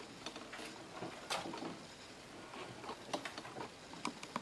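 Faint, scattered plastic clicks and taps from a computer monitor being handled and turned on its stand.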